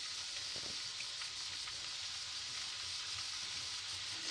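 Sliced onions, green chillies and tomato pieces sizzling steadily in oil in an aluminium kadai as they sauté down.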